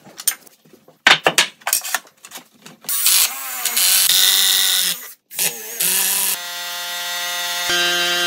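Ratchet wrench clicking as a sill-plate anchor-bolt nut is tightened, then a hammer drill boring into the concrete slab. The last two seconds are a steady droning tone.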